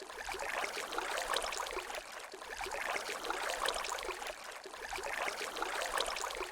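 A steady, fluttering rush of noise like trickling, running water, with no tune or voice in it.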